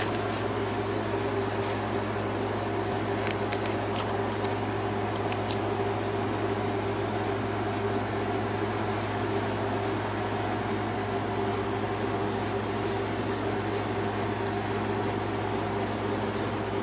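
Steady mechanical hum, a low drone with a higher steady tone above it, unchanging throughout, with a few faint light ticks.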